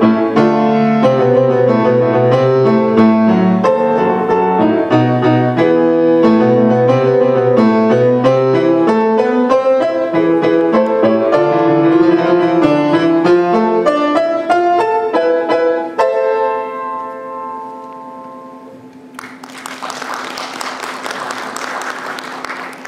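Solo grand piano playing a fast classical piece, ending about 16 seconds in on a held chord that rings out and fades. About three seconds later an audience applauds.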